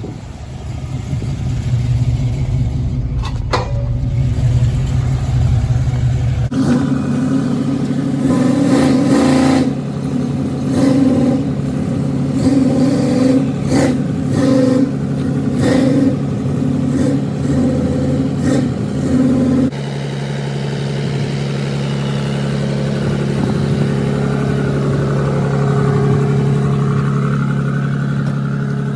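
Motor vehicle engine running steadily, in three cut-together clips; in the middle clip the sound swells and drops in short pulses about once a second.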